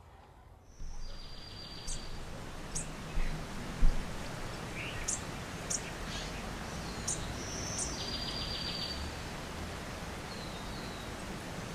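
Outdoor ambience: a steady rushing noise with a low rumble, with short high bird chirps scattered through it and two buzzy trilling calls about a second long, one near the start and one about eight seconds in. A single low thump comes near four seconds in.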